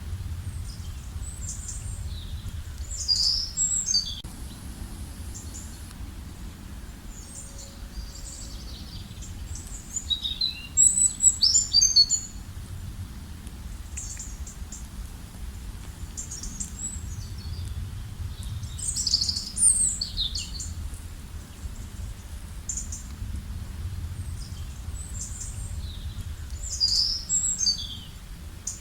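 Songbirds singing: short, high-pitched song phrases come back every several seconds, the loudest about ten seconds in, with scattered chirps between them. A steady low rumble runs underneath.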